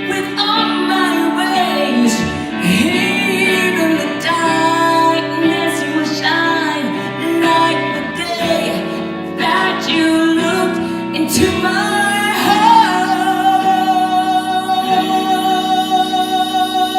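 Live female-vocal pop ballad: the singer's wavering vocal runs, with no clear words, over steady band accompaniment, then a long steady note holding through the last few seconds.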